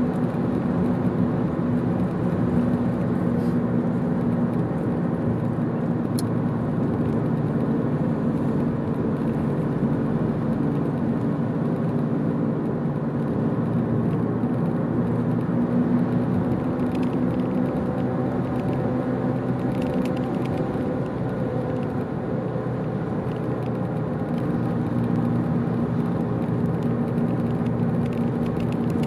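Car driving steadily on an open road: a constant drone of engine and tyre noise with a few held low tones.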